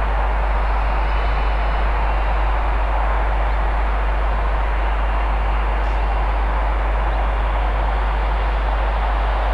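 A steady, loud rumbling noise that does not change or break.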